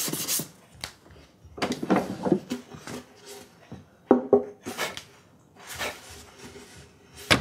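An unvarnished wooden violin body being handled and turned over: soft rubbing and scattered light wooden knocks, with a couple of sharper knocks about four seconds in.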